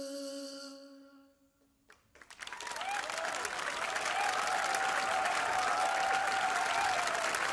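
The final held note of the song fades out over the first second and a half. After a brief silence, audience applause starts about two seconds in and quickly builds to steady clapping.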